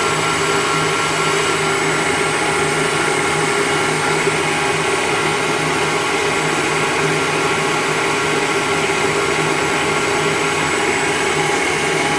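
Turret lathe running steadily under power: a constant machine whine with several fixed tones over a loud hiss, with no change in speed.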